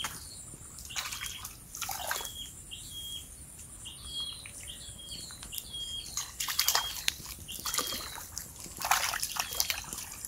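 Water sloshing and splashing in several short bursts, with a bird chirping in short high notes about once a second between them.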